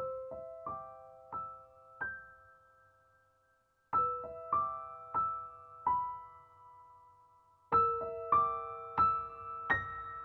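Background piano music begins: slow, gentle notes struck one or two at a time and left to ring out, in three short phrases.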